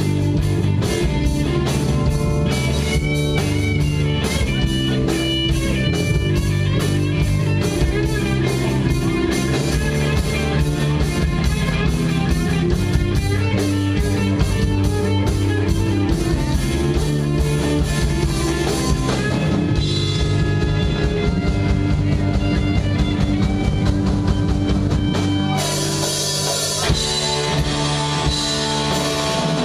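Live rock band playing an instrumental passage: electric guitar and bass over a steady drum-kit beat. The drums thin out about two-thirds through, then come back in with cymbals near the end.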